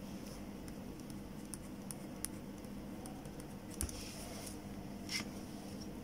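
Ballpoint pen on paper: faint scratching and light ticks as a word and a line are written, with a brief louder scrape about five seconds in. A low steady hum runs underneath.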